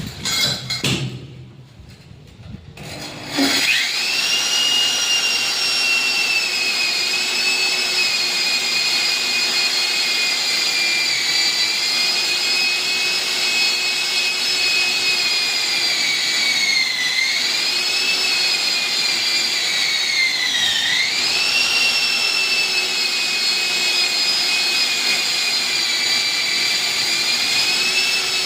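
Core cutting drill starting up about three seconds in and running with a steady high-pitched whine. Its pitch sags briefly twice, a few seconds apart, near the middle.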